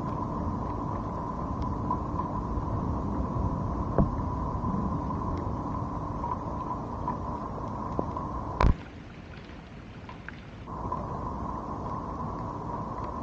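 Rain and wind on a waterproof 360 camera's microphones: a steady rumbling noise with a steady hum and scattered ticks of drops. A sharp knock comes about nine seconds in, after which the rumble and hum drop out for about two seconds, then return.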